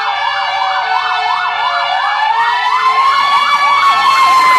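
Fire truck sirens sounding together: an electronic siren yelps fast, about three sweeps a second, over a slow wail that climbs to a peak about three and a half seconds in and then sinks back, as a mechanical Q siren does when it winds up and coasts down.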